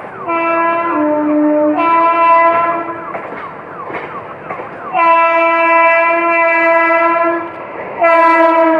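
WAP7 electric locomotive's horn sounding three long blasts as the train approaches, the first briefly dropping lower in pitch partway through. The rumble of the oncoming train runs underneath.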